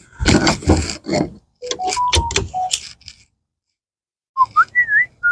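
Handling noise of pet-screen mesh being pushed into a dog-door frame: rustling and sharp clicks in the first few seconds, then a few short high squeaks near the end.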